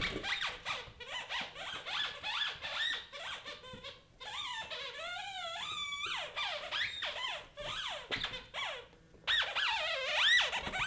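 Squeaky toy chicken squeezed over and over in a puppy's jaws: a quick run of short squeaks, then longer wavering squeals around the middle, then more quick squeaks near the end.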